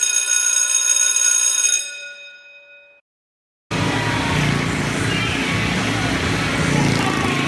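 A ringing musical chord that fades away, then a short gap; about three and a half seconds in, a motorcycle engine starts up loud and holds steady revs as the bike circles the vertical wooden wall of a motordrome.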